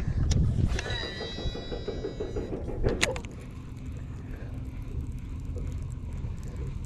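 Shimano Metanium DC baitcasting reel on a cast: its digital-control brake gives a high electronic whine, several tones falling in pitch, for about a second and a half while the spool spins. A sharp click comes about three seconds in, then the reel is wound in steadily.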